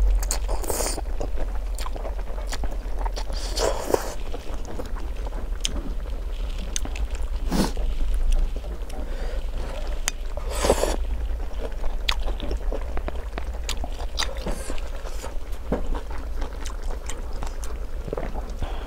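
A person eating noodles: several slurps a few seconds apart, chewing, and scattered small sharp clicks, over a steady low hum.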